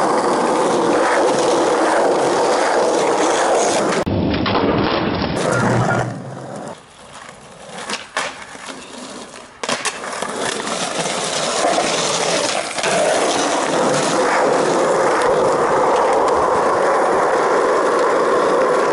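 Skateboard wheels rolling over rough asphalt close by, a loud continuous rumble. About six seconds in the rolling drops away for a few seconds, leaving a few sharp knocks of the board hitting the ground, before the rolling comes back.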